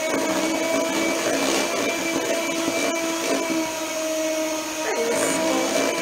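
Electric hand mixer running steadily, its beaters whirring through thick pumpkin cake batter in a bowl.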